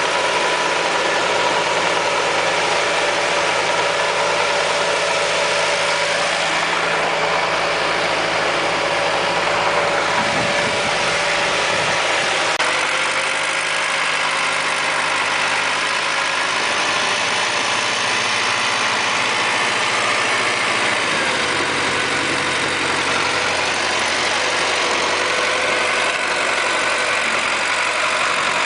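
Tractor engine running steadily while driving a rotary tiller through the soil, with a steady mechanical whine over the engine noise. The pitch dips slightly about three-quarters of the way through.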